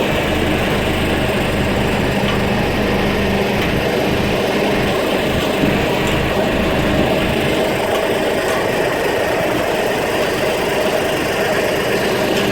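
An engine running steadily at an even pitch and level, with no change in speed.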